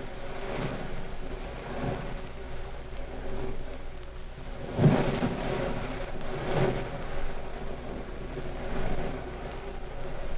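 A thunderstorm sound effect: steady rain-like noise, with rumbling surges of thunder, the sharpest about five seconds in and another a second and a half later.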